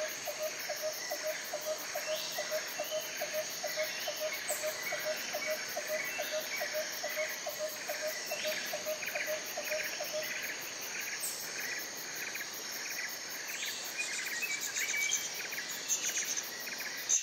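Tropical rainforest insect chorus: dense, steady, rhythmic chirping and trilling, with a lower repeated chirp about three times a second that stops about ten seconds in, and a few short bird calls.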